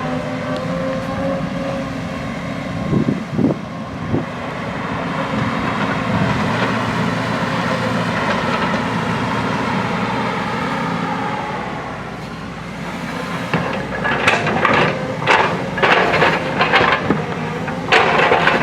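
JCB backhoe loader's diesel engine running steadily under working load. There are a couple of short knocks about three seconds in and a dense run of sharp knocks and clanks over the last few seconds as the machine digs into the hillside.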